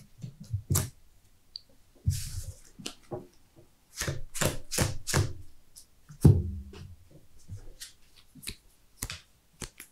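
Sleeved trading cards being handled on a playmat. A run of light taps and clicks as cards are picked up, squared and set down, a brief sliding scrape, a quick cluster of taps, then a louder knock on the table about six seconds in.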